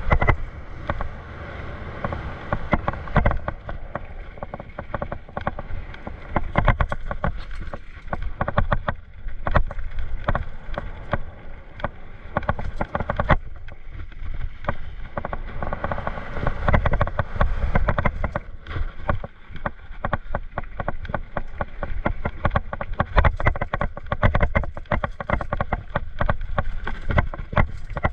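Mountain bike descending a rough dirt trail: a steady rushing rumble of tyres over the ground, with the bike rattling and knocking over bumps many times a second.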